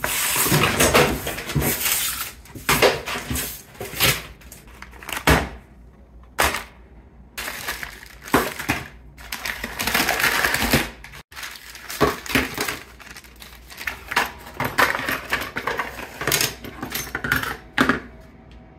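Hands handling packaging: books and papers slid aside, a paper mailer and padded envelopes rustling and crinkling as they are opened, and small plastic bags of parts crackling and being set down with light knocks, in irregular bursts.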